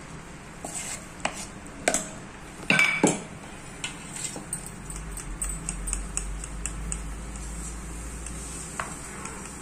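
Metal spoon scraping and clinking against a steel bowl and aluminium cake tin while thick batter is spooned out: a handful of sharp clinks and scrapes, the loudest about three seconds in, then quieter scraping.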